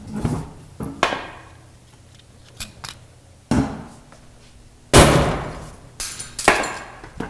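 Big wooden mallet striking a plastic camera lens on a worktable: a series of heavy, unevenly spaced blows, the loudest about five seconds in, with a couple of lighter taps between them. The blows are knocking a stuck inner piece out of the lens.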